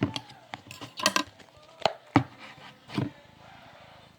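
Kitchen utensil clinking and scraping against a bowl while slime is being mixed: five or six separate knocks, with a short cluster of them about a second in.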